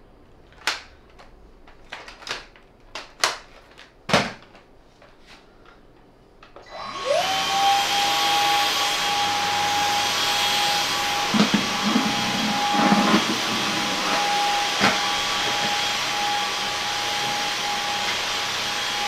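A few sharp clicks and knocks as an attachment is fitted to the wand of a Samsung Jet 90 cordless stick vacuum. About seven seconds in the motor is switched on: a quick rising whine settles into a steady high-pitched running tone, here on medium power. Midway there are a few brief low rumbles as the motorized brush head works the carpet.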